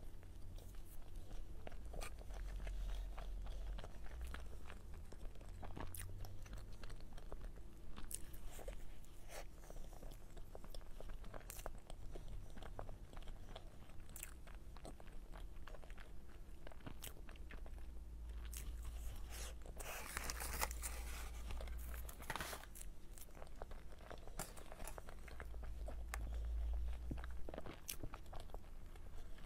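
Close-miked eating: biting into and chewing a soft cream-filled crepe roll studded with chocolate cookie crumbs, wet mouth sounds with many small sharp crunches and clicks. A longer, louder crunching patch comes about two-thirds of the way in.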